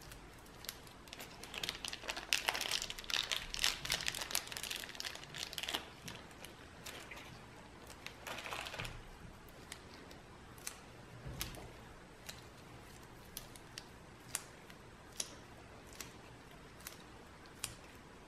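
Crinkling and rustling as paper towel and a small plastic bag are handled with gloved hands, in two spells, then a few scattered light clicks.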